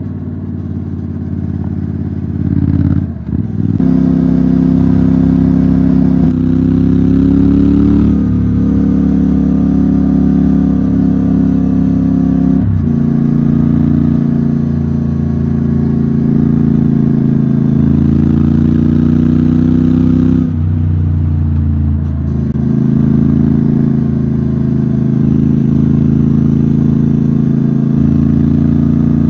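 Motorcycle engine running under load on a rough dirt road, its note rising and falling with the throttle, with brief dips about three seconds in, near the middle and again about two-thirds through.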